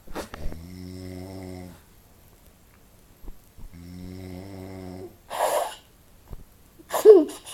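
A person asleep on a couch snoring: two long, steady, low rattling snores about three seconds apart, with a short breathy puff of air after the second. Near the end a short, loud vocal burst cuts in, louder than the snores.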